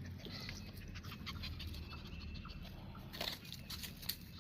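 Faint woodland birds chirping in short scattered calls, with many small clicks and two louder clicks about three and four seconds in.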